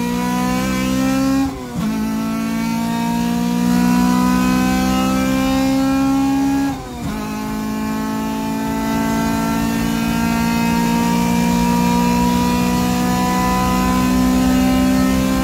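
Honda CRX's B16 1.6-litre four-cylinder VTEC engine accelerating hard uphill under full load, heard from inside the cabin. The engine note climbs steadily in pitch, drops briefly at two quick upshifts about one and a half and seven seconds in, then climbs slowly again in the higher gear.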